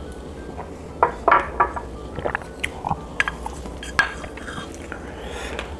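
Chopsticks clicking and tapping against a small plastic bowl, with chewing; a cluster of short, sharp taps comes between about one and four and a half seconds in.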